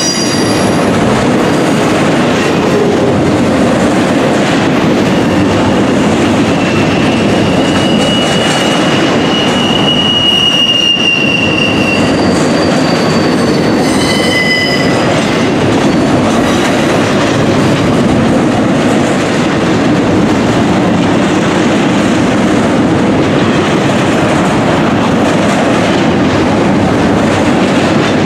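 Freight train of loaded container well cars rolling past close by: a steady loud rumble and clatter of steel wheels on rail. High wheel squeals come and go, a long one from about seven to twelve seconds in and a short one near fifteen seconds.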